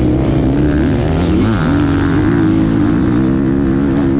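KTM 450 SX-F motocross bike's 450cc four-stroke single-cylinder engine running hard at high revs. The revs dip briefly about a second and a half in, then pick up again and hold steady.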